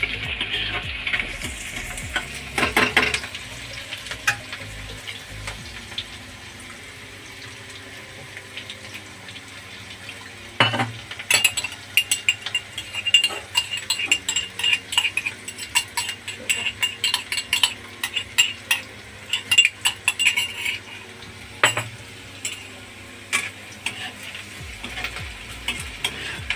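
Crushed garlic and chopped green chillies sizzling steadily in hot oil in a metal kadhai, stirred with a metal spoon. From about ten seconds in, the spoon clinks and scrapes against metal again and again, with a couple of louder knocks.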